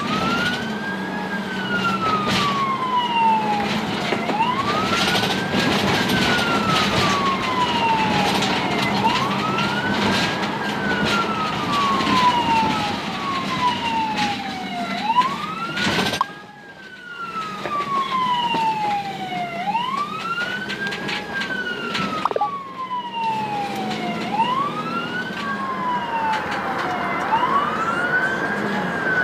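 Ambulance siren on wail, heard from inside the cab: the tone rises quickly and falls slowly, repeating about every four to five seconds over a steady low hum. The sound dips briefly about sixteen seconds in.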